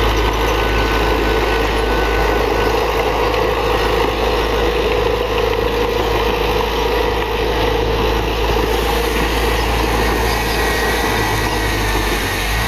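Diesel engine of heavy earthmoving machinery running steadily, a constant low rumble under a steady mid-pitched drone.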